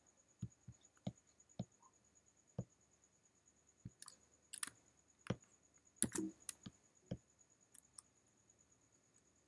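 Irregular sharp clicks of a computer mouse and keys as files are selected and a context menu is opened, about fifteen in all with a quick cluster a little past the middle.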